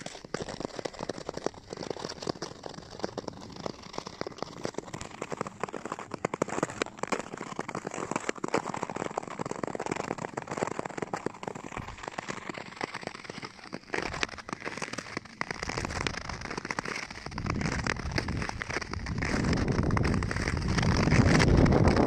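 Nordic skate blades gliding and scraping over snow-dusted natural lake ice, a dense crackling patter. Wind on the microphone rises over the last few seconds and becomes the loudest sound.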